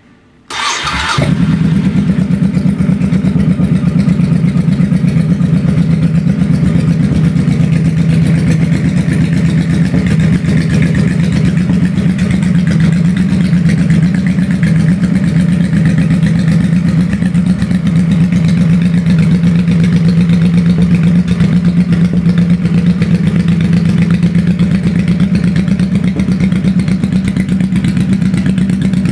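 Honda Shadow Sabre 1100 V-twin cruiser engine, fitted with an aftermarket exhaust and rejetted carburetion, cranked on the electric starter and catching about a second in, then idling steadily.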